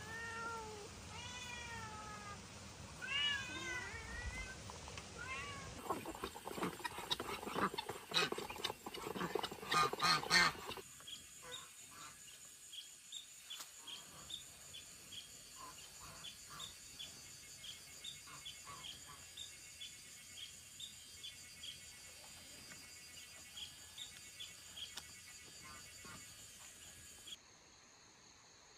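Domestic cat meowing repeatedly: several rising-and-falling meows, getting louder up to about ten seconds in. After that, faint high chirps repeat about twice a second.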